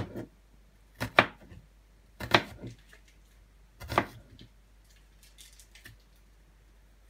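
Kitchen knife slicing through an onion and knocking on a plastic cutting board: a handful of slow, separate cuts about a second or so apart, with a few faint clicks near the end.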